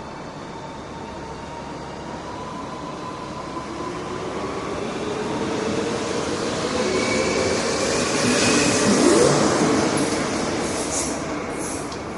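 Train pulling out of a station: its running noise builds with a slowly rising whine, is loudest about nine seconds in as it passes, then begins to fade.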